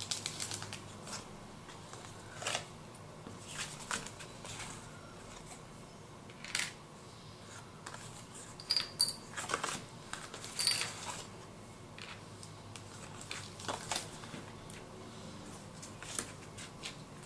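Paper journaling cards and cardstock being handled, shuffled and laid down on a cutting mat: short, scattered rustles and flicks of paper at irregular intervals.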